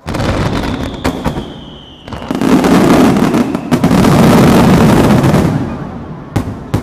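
Fireworks bursting at the water's surface in a dense, sudden barrage of booms and crackling. About two seconds in it swells into a continuous rumble, then fades, with a couple of sharp bangs near the end. A faint high whistle slides down in pitch during the first two seconds.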